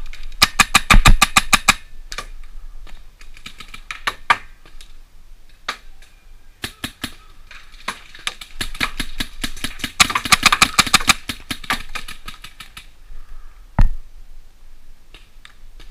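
Electronic paintball marker, an Empire Axe, firing rapid strings of shots at about eight a second: a short burst near the start and a longer one in the second half, with scattered single shots between. One heavier thump comes near the end.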